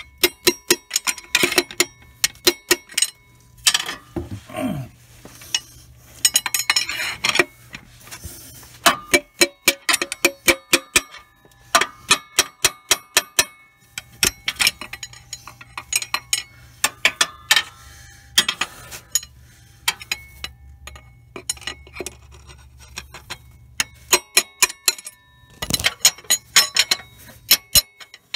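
Hammer tapping on a long steel socket extension, metal on metal with a ringing clink, driving a piston and rod assembly up out of its cylinder bore from underneath a Ford 3.0 L Vulcan V6 engine. The taps come in quick runs of several, with short pauses between.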